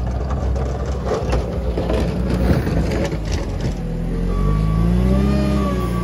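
JCB 409 wheel loader's diesel engine working as its V-plow pushes snow, with crackling and scraping from the blade and the snow for the first few seconds. About four seconds in, the engine revs up, its pitch rising and then easing back.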